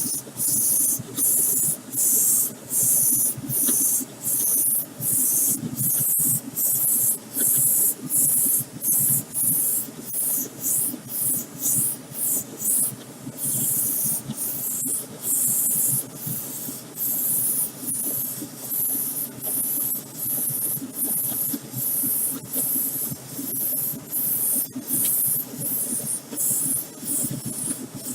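Airbrush hissing in a long series of short, regular bursts as the trigger is pressed and let go, with air and clear coat spraying onto a model car hood.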